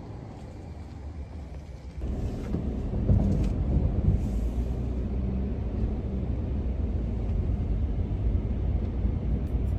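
Steady low rumble of a vehicle driving, stepping up in level about two seconds in.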